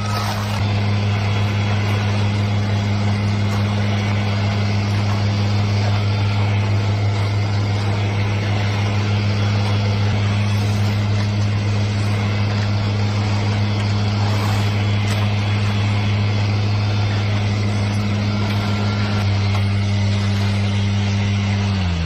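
Small engine of a ScreeDemon power screed running steadily at high speed, vibrating the aluminium screed blade as it is drawn across wet concrete. It winds down in pitch at the very end.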